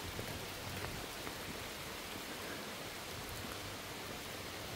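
Heavy rain pouring down: a steady, even hiss of rainfall with a few faint drop ticks.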